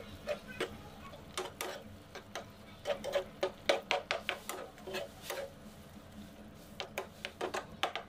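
Metal spoon scraping and clicking against a frying pan while stirring a wet mix of tuna, potato and milk: irregular clusters of quick ticks, busiest around the middle and again near the end.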